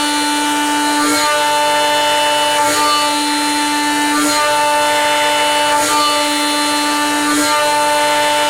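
Home-built CNC mill's end mill cutting aluminium, a steady high whine of several fixed tones from the spindle and cutter. The tones break briefly about every one and a half seconds as the cutter reverses or steps to the next pass.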